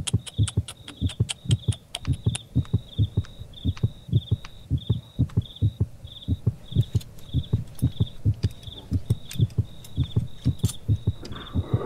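Low double thumps repeating about twice a second, with a short high chirp repeating over them. A hiss of noise swells in near the end.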